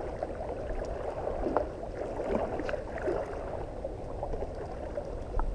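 River water rushing and gurgling steadily around a wading angler, with a few faint short clicks.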